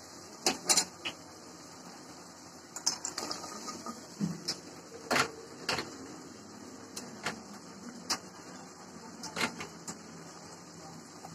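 Utensil clatter on a metal karahi: about a dozen irregular sharp knocks and clinks, the loudest about five seconds in, over a faint steady hiss.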